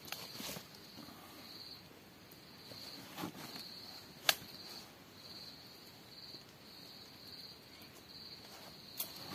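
An insect trilling at one high pitch in repeated phrases about a second long with short gaps. A few faint knocks and one sharp click about four seconds in.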